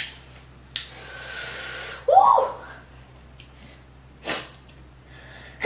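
A woman breathing hard against the heat of spicy seafood-boil sauce: a long hissing breath, then a short, loud vocal burst, and a sharp sniff a couple of seconds later.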